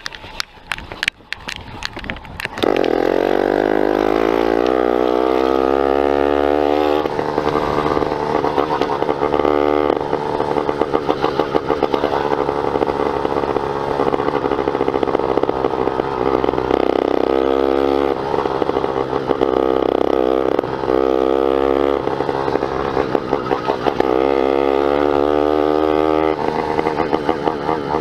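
An 80cc two-stroke motorized-bicycle engine with a snapped exhaust. After a couple of seconds of clattering, it comes in loud about two and a half seconds in, then climbs in pitch as the bike picks up speed. It runs on with the revs rising and dipping.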